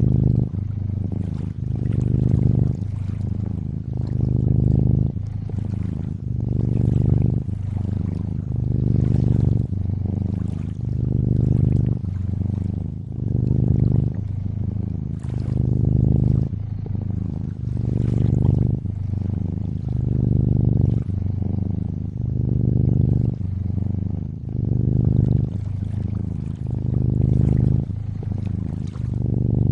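Domestic cat purring steadily, the low purr swelling and easing about every two seconds with each breath, over a soft background of lapping, trickling water.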